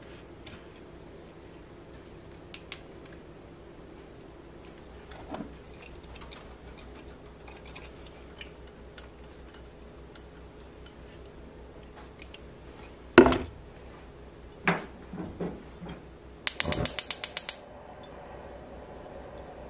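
Kitchen work noises: a loud knock of cookware against the stove, a few softer knocks, then a gas range's igniter ticking rapidly, about ten clicks in a second, before the burner lights and a low steady hiss carries on.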